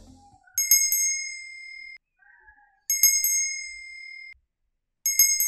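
Small copper bells struck three times, about two seconds apart. Each stroke is a quick cluster of hits followed by a bright, high ring that stops abruptly.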